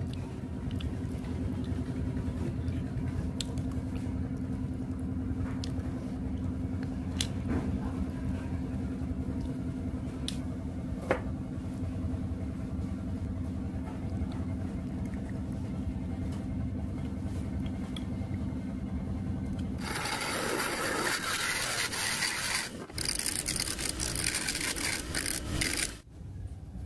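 A machine running with a steady low hum, with a few light clicks. Near the end a loud, hissing noise takes over for several seconds, breaks briefly, then stops suddenly.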